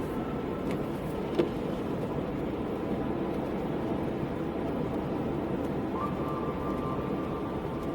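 Steady car road and engine noise heard from a moving car, with a single small click about a second and a half in and a faint steady tone that joins near the end.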